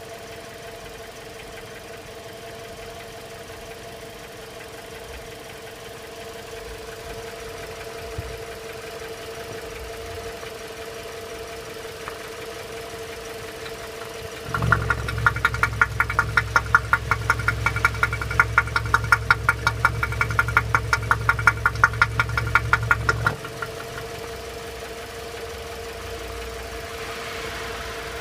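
Toyota 3ZR-FAE four-cylinder petrol engine running with a knock. About halfway through, for roughly nine seconds, it gets much louder, with a fast, even run of sharp knocks over a low hum, then drops back to the quieter steady running.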